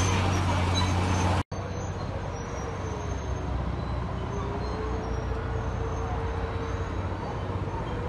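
Steady engine drone that cuts off abruptly about a second and a half in. A quieter steady engine rumble follows, with a faint wavering whine over it.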